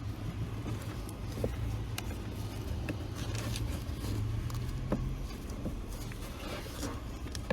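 Car cabin air filter being handled and pushed back into its housing: scattered light plastic clicks and rustling over a steady low hum that fades about five seconds in.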